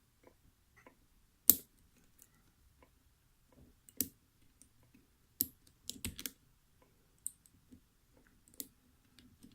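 Small metallic clicks of a lock pick and tension wrench working the wafers inside a laminated five-wafer padlock, irregular single clicks with the sharpest about a second and a half in and a quick cluster around six seconds.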